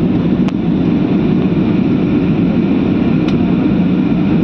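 Steady low rumble of an aircraft in flight, heard from inside the cabin, with a faint click or two.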